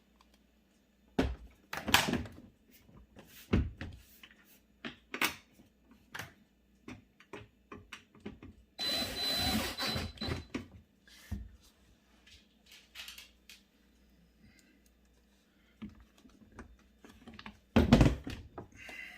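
Scattered knocks and clinks of metal panel parts and screws being handled; about nine seconds in, a cordless drill/driver runs for about two seconds, driving in a screw.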